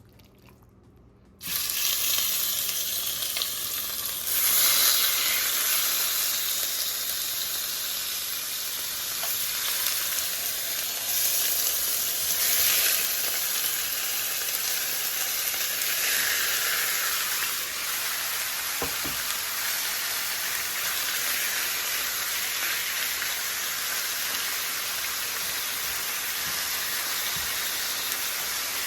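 Seasoned goat meat sizzling hard as it goes into a hot pot of melted sugar browning. The sizzle starts suddenly about a second and a half in and surges louder a few times as more pieces go in.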